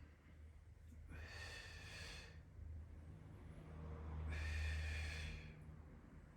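A person breathing audibly, two long breaths about three seconds apart, paced with a lying core exercise, over a steady low hum.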